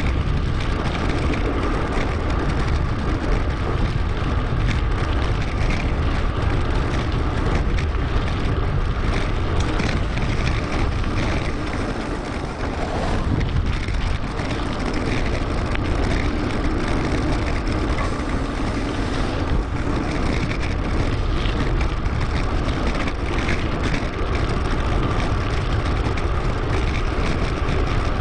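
Steady wind rush and rolling noise from a moving mountain bike, picked up by a GoPro mounted on it and sped up 2.5 times, with a brief lull about twelve seconds in.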